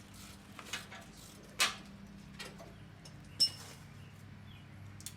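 Small metal bolts being handled, giving a few sharp, light clicks and clinks; the loudest come about one and a half and three and a half seconds in, the second with a brief metallic ring. A steady low hum runs underneath.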